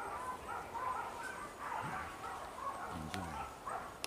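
Hunting dogs yelping and barking repeatedly, many short high calls overlapping one another.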